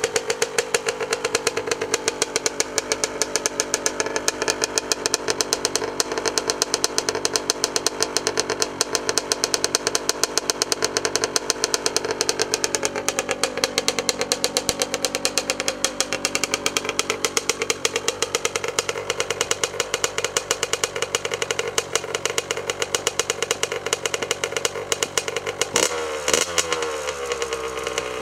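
Honda CR85RB's 85cc two-stroke single idling steadily through its stock exhaust, with a rapid, even popping. Near the end, the throttle is blipped a few times and the revs rise and fall.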